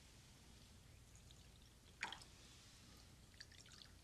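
Faint sound of water being poured from a glass measuring cup into small glass bowls, with one short sharp sound about two seconds in and a few light ticks near the end.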